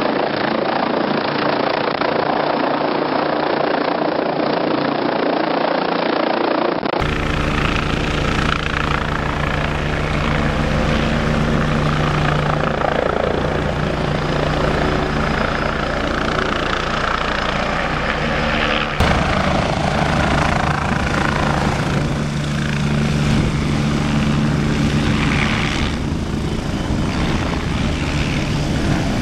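Helicopter rotor blades beating and turbine engine running close by, a loud steady low hum with a fast rotor pulse. The sound changes abruptly about seven seconds in and again about twelve seconds later where shots are joined.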